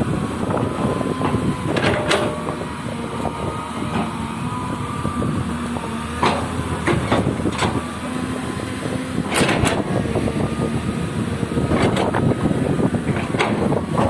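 Excavator diesel engine running under load, with repeated sharp metallic clanks and knocks from the machine's tracks and bucket linkage.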